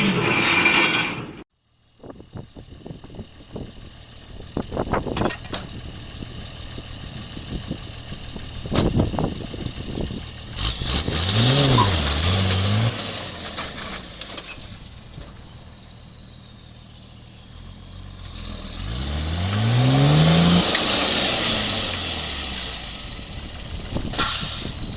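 A vehicle engine revving hard twice, its pitch rising each time, about ten and twenty seconds in, with knocks and clatter in between.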